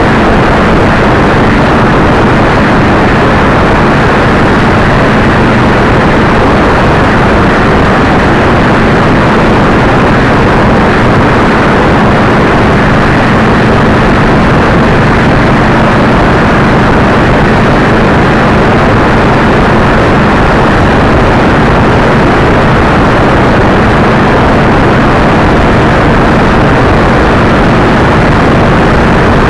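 Loud, steady wind noise buffeting the microphone of a camera on a motorcycle at highway speed, with a low engine hum underneath.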